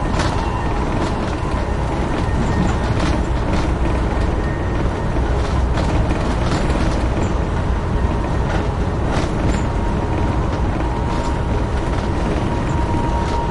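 Amtrak Northeast Regional passenger train running at speed, heard from aboard: a steady rumble with a thin steady hum, and irregular clicks of the wheels over the track.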